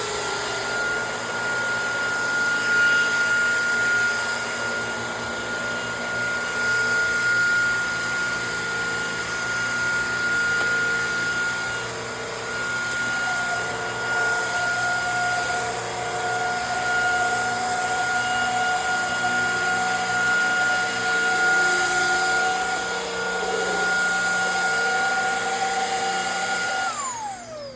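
Shark handheld vacuum running, an extremely loud steady motor whine over rushing air. A second, lower tone joins about halfway through. It is switched off near the end, the whine falling in pitch as the motor winds down.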